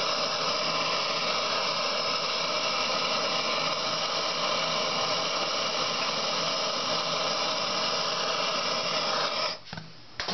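Hand-held gas torch flame hissing steadily as it heats a brake-disc bolt to soften its blue Loctite. The hiss cuts off suddenly near the end, followed by a short sharp click.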